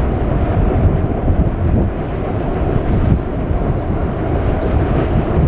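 Wind buffeting the microphone: a loud, steady, low rushing noise.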